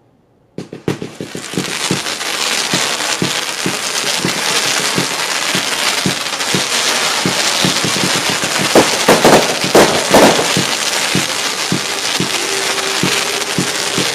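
Fireworks shooting a rapid series of comets, starting about half a second in. Sharp launch shots come about three a second over a continuous crackling hiss from the burning comet tails, and the loudest shots fall around nine to ten seconds in.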